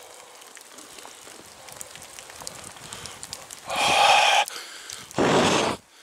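A man breathing out hard twice: a breathy 'haa' about four seconds in, then a rougher blow about a second later, each under a second long. Faint rustling and small ticks come before them.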